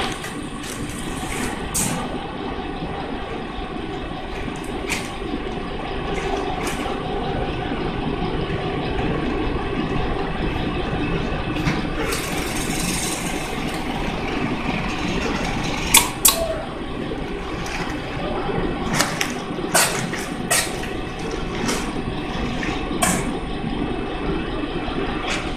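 25 kg bag packing machine running with a steady mechanical drone. A short hiss comes about halfway through, and several sharp clacks follow, the loudest pair a little after the hiss.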